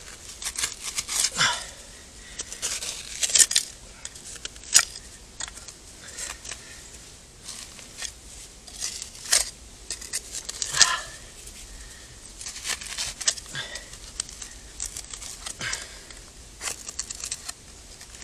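Hand trowel scraping and chipping at hard-packed dirt, in irregular scrapes and sharp clicks of grit and gravel.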